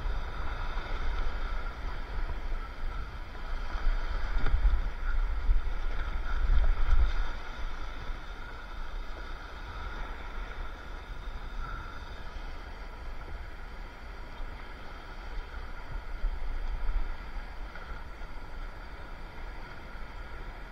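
Rushing whitewater of a river rapid, with low wind buffeting on the microphone that swells about four to seven seconds in and again near the end.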